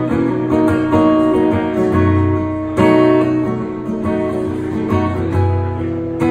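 Martin acoustic guitar played solo, with no voice: slow strummed chords, each struck and left to ring.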